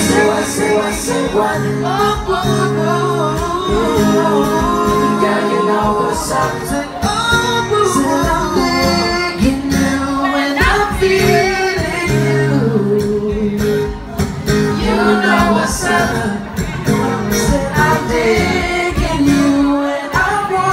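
Live pop music: a male vocal group singing in harmony over an acoustic guitar.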